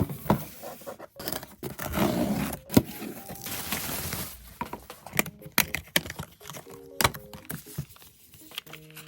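Paper or plastic packaging rustling and tearing, with many sharp clicks and knocks of handling, then a few short electronic beeps near the end.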